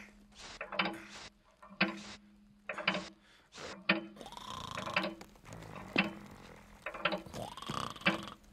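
Steady mechanical ticking, like a clock, roughly one tick-tock a second, with a soft rising-and-falling swoop about halfway through and again near the end.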